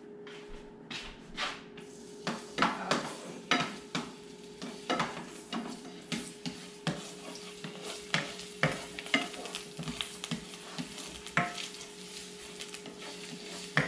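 Chopped garlic sizzling in oil in a nonstick frying pan while a spatula stirs it, knocking and scraping against the pan in irregular taps about twice a second.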